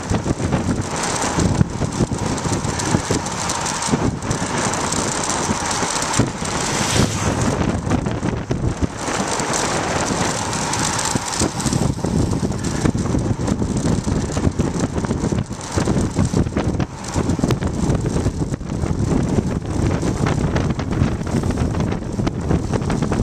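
Wind rushing over the microphone of a bike-mounted camera during a fast road-bike descent, with the bike's rolling noise and frequent short knocks and rattles from the bouncing homemade camera mount.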